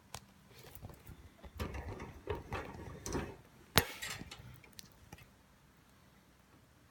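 Light rustling clatter and tapping, with one sharp loud click about four seconds in, then a few faint ticks.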